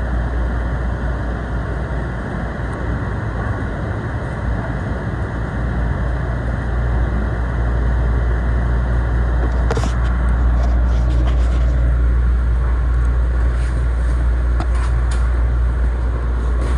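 Steady rumble of a moving commuter train, heard from inside the car, growing slightly louder about seven seconds in. About ten seconds in there is a sharp click, followed by scattered small clicks and rattles.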